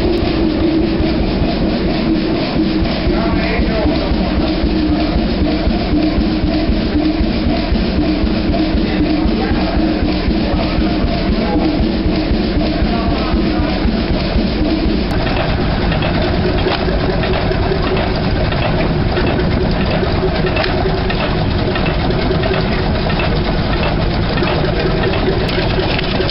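Hot bulb semi-diesel engines running with a steady, even beat. First comes a large multi-cylinder hot bulb engine in an engine hall; about halfway through the sound changes abruptly to a smaller single-cylinder hot bulb engine outdoors.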